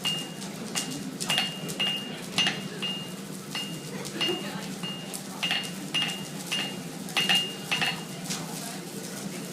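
A hammer striking a steel sword blade on an anvil in a steady rhythm of about two blows a second, each blow ringing with the same high metallic tone. The blade is being forged into shape.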